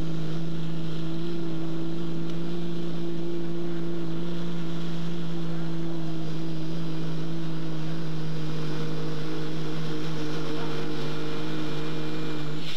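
Diesel pickup truck's engine under full load pulling a weighted sled, holding one steady, unchanging drone.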